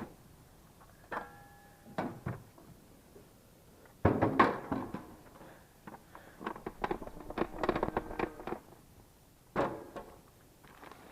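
Hard knocks and rattling clatter as the cab filter housing of a John Deere 4440 tractor is handled and knocked to dump out the dirt collected in it. A single knock with a short metallic ring comes first, the loudest burst of clatter about four seconds in, more rattling after it, and a last knock near the end.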